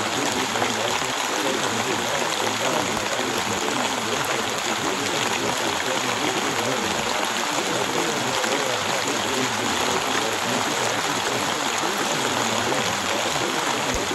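Steady rainfall, an even, unbroken wash of rain noise.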